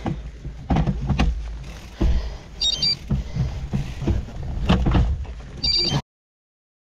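Wind rumbling over a bike-mounted action camera, with repeated knocks and rattles from the gravel bike jolting over rough dirt, and two short high chirps. The sound cuts out completely about six seconds in.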